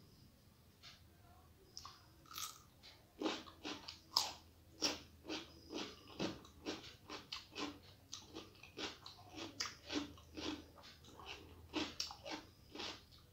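A person chewing a mouthful of food close to the microphone: wet, crisp mouth clicks and crunches coming two to three a second, starting about three seconds in after a few faint clicks.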